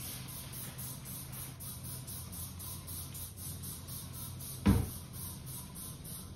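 Trigger spray bottle being squeezed to mist cleaner across restroom mirrors, over a steady low hum, with one heavy thud about three-quarters of the way through.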